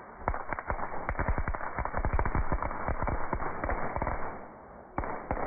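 Crackle ball firework crackling: a fast, dense string of sharp pops for about four seconds that then thins out, followed by two louder single pops near the end.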